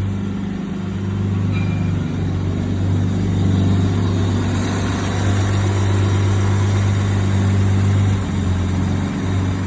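Car engine idling steadily and evenly, its misfire repaired: running healthily.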